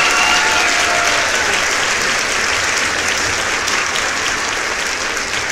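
Loud, steady crowd applause, laid over an end screen as an outro sound effect.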